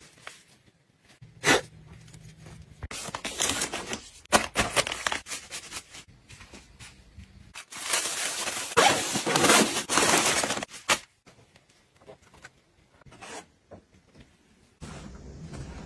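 Plastic-wrapped sanitary pad packets crinkling and rustling as they are handled and packed. There are two spells of several seconds, the louder one about eight to eleven seconds in, with a few short taps and clicks between.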